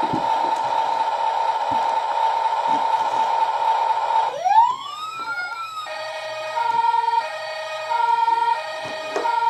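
Battery-powered toy fire engine playing its siren sound effect through its small speaker. A steady electronic tone gives way, about four seconds in, to a rising wail. This then settles into a two-tone hi-lo siren, with the high and low notes alternating about every 1.4 seconds.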